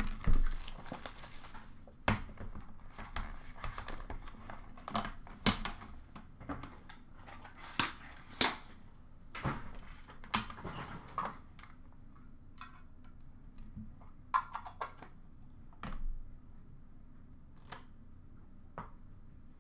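Hockey card box and pack wrapper being opened by hand: a run of short crinkles, rips and clicks of cardboard and wrapper, busiest in the first half and thinning to a few scattered clicks near the end.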